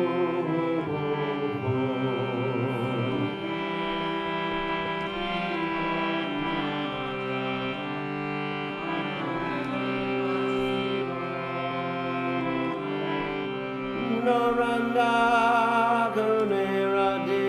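A man singing a devotional Hindu chant, accompanying himself on a harmonium whose reeds hold steady chords beneath his wavering voice. The singing grows louder a few seconds before the end.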